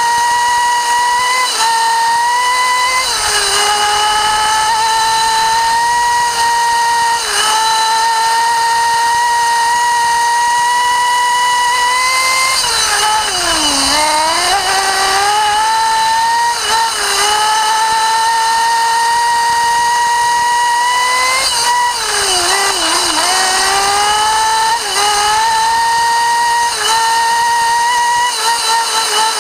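Small two-stroke glow engine of a nitro RC buggy, heard from a camera mounted on the car, screaming at high revs. The pitch dips briefly several times as the throttle is lifted, falling deeply and climbing back twice, near the middle and again about three-quarters through.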